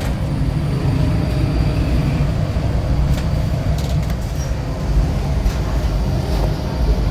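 A steady low rumble like a running vehicle, with a few light clicks.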